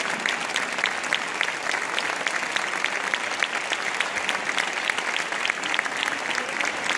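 Audience and musicians applauding: steady, dense clapping of many hands.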